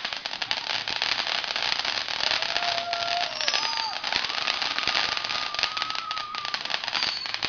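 Aerial fireworks crackling densely and rapidly, like a long run of firecracker pops from crackle-effect shells. A few thin whistles sound through the middle, one held for about two seconds.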